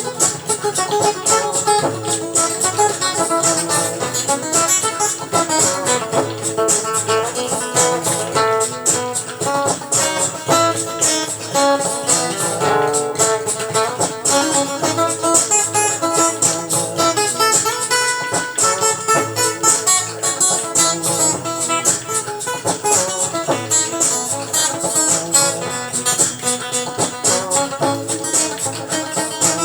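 Guitar-led instrumental music with a steady beat.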